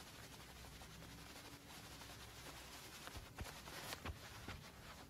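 Near silence: faint steady hiss, with a few soft clicks and rustles in the second half.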